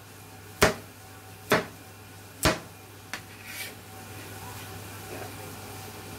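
Chinese cleaver chopping through raw carrot onto a plastic cutting board: three sharp, evenly spaced chops about a second apart, followed by two lighter knocks.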